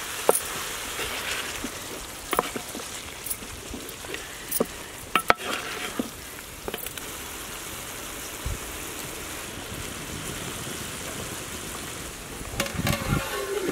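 A pot of green chicken curry with water just added, simmering with a steady sizzle and bubble while a wooden spoon stirs it, knocking against the metal pot a few times in the first half.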